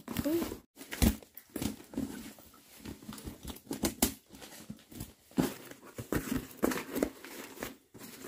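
Cardboard parcel being opened by hand: packing tape tearing and cardboard flaps and wrapping crinkling and scraping, then cloth items rustling as they are pulled out of the box, in an irregular string of crackles and knocks.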